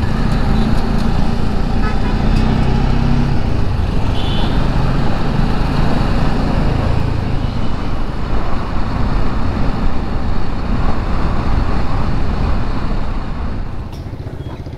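Motorcycle riding along a town road: steady wind rush on the microphone over the bike's engine running, with traffic around and a short high toot about four seconds in. The sound drops away near the end as the bike comes to a stop.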